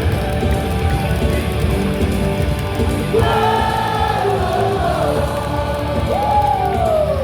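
Music over the stadium loudspeakers, with the crowd singing and shouting along; a sliding melody line comes in about three seconds in.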